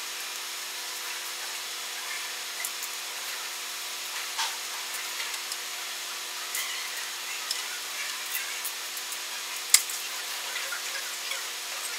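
DLP resin 3D printer at work, its build plate slowly lifting the print out of the resin vat: a steady hiss with faint steady tones and scattered small clicks, and one sharper click about ten seconds in.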